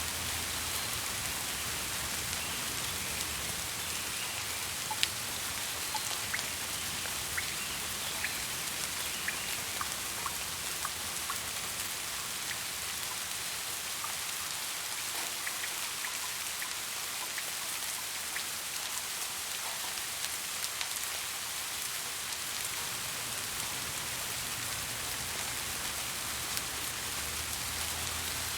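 Steady rain hissing, with individual raindrops ticking close by on a surface, most often in the first half.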